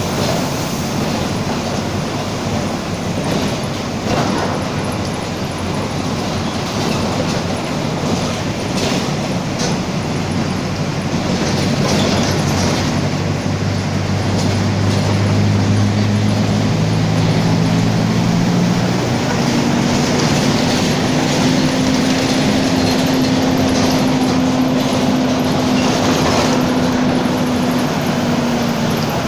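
Mercedes-Benz OF-1722M city bus driving, with a steady running noise and rattles. About a third of the way in, a differential growl comes in and steps up in pitch as the bus gathers speed. It holds at its highest through most of the last third, then fades near the end.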